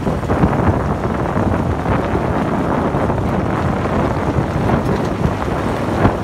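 Wind buffeting the microphone of a phone held out the window of a moving Jeep Grand Cherokee, mixed with the tyres rolling on the road. A short bump near the end.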